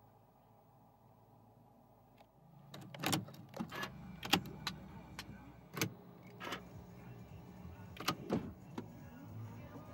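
Key being inserted and turned in a Porsche 991 Carrera 4 GTS's dash ignition: a string of sharp clicks and knocks over a low steady hum, starting about three seconds in, as the ignition is switched on ahead of starting the engine.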